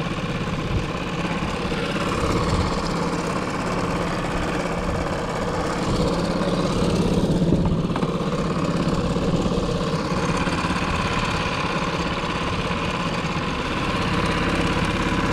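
Small Mercury kicker outboard motor running steadily at trolling speed, a constant even drone.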